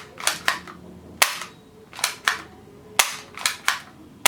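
Plastic toy gun being worked and fired, making about eight sharp plastic snaps, several in quick pairs about a quarter second apart.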